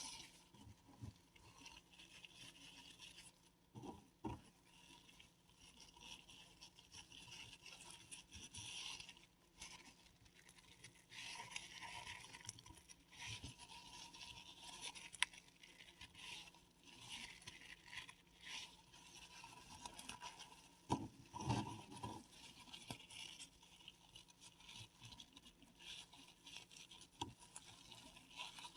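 Faint, intermittent scraping and crumbling of a paradichlorobenzene mothball being crushed and rubbed by hand, with a couple of dull low knocks about four seconds in and again around twenty-one seconds in.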